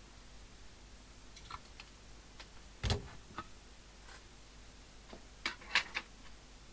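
Scattered clicks and light knocks of a CB radio's parts and bench tools being handled while the speaker is unsoldered, with one louder thump about three seconds in and a quick cluster of clicks near the end.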